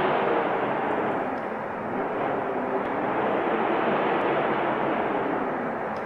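Snow-storm wind blowing as a steady rushing noise, easing a little about two seconds in and then building again.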